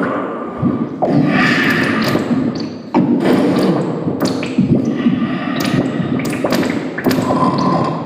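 Live noise music: a dense, loud wall of harsh electronic noise, jolted by abrupt clicks and jumps in level several times.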